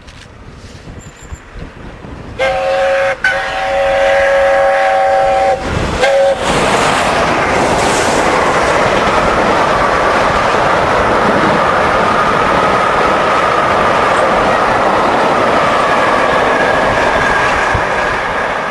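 The whistle of Peppercorn A1 steam locomotive 60163 Tornado sounds as one steady multi-note chord, starting about two seconds in and stopping after about four seconds. The locomotive and its train then pass close by, a loud, steady rush of the engine and its coaches running over the rails.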